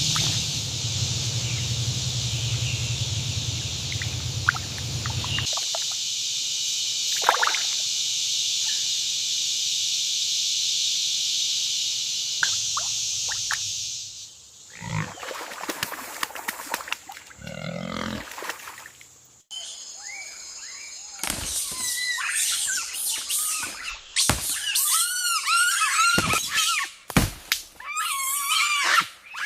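Jungle wildlife ambience: a steady high hiss for about the first fourteen seconds, then scattered animal sounds, and over the last eight seconds many quick, warbling, up-and-down animal calls.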